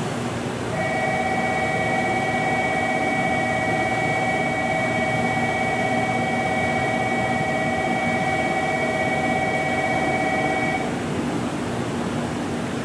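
A station platform's electronic departure bell sounds as one steady, unchanging two-tone ring for about ten seconds, then cuts off. Underneath is the steady hum of a train standing at the platform.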